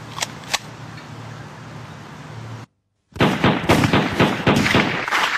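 Two sharp clicks over a low hum, then after a brief dropout a loud, rapid string of gunshots.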